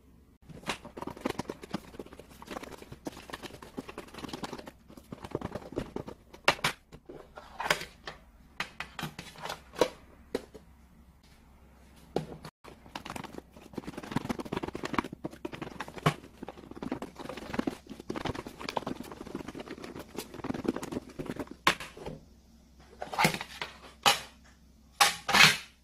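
Old-style Korean metal lunchbox (yangeun dosirak) shaken with its lid on, the rice, egg, sausage and kimchi rattling and thudding inside the tin to mix them together. A few sharp metal clanks come near the end as the lid is handled and lifted off.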